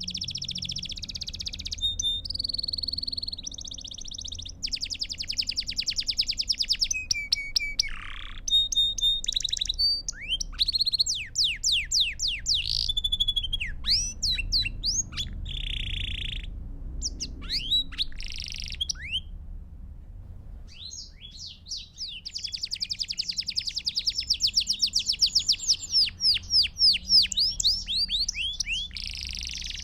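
Canary singing continuously: fast trills of rapidly repeated notes alternating with rolls and quick downward-sweeping whistles, pausing briefly about two-thirds of the way through.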